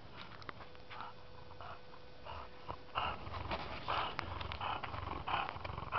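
English bulldog breathing noisily close to the microphone, with a run of quick, irregular puffs of breath from about three seconds in.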